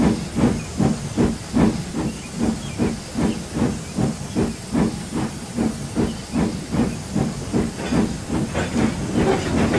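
Steam locomotive puffing at a steady pace, about three chuffs a second with steam hissing, as it pulls away.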